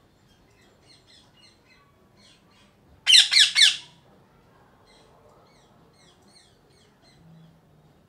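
Male Indian ringneck parakeet giving a quick run of about four loud, harsh screeches lasting about a second, some three seconds in. Faint high chirps come before and after.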